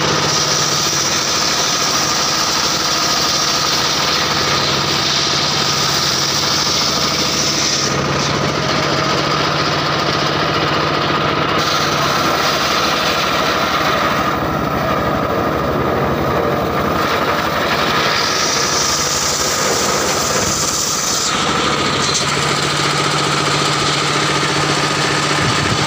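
Engine-driven homemade circular sawmill running, a steady engine drone under the big blade as it rips a mahogany log. The high hiss of the cut is strongest for the first eight seconds and again about two-thirds of the way through, and eases off for a few seconds in between.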